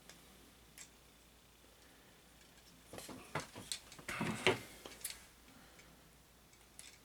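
Hands handling a plastic toy figure and its packaging: a short cluster of clicks and rattles about three seconds in, lasting about two seconds, with faint ticks before and after.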